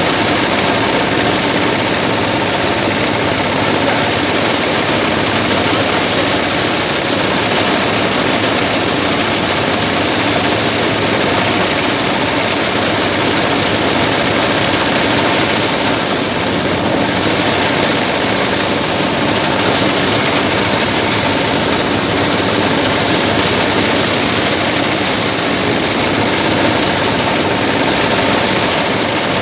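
J190NL engine running steadily, driving a paddy thresher's drum as rice stalks are fed in and threshed. The loud mechanical din holds even throughout.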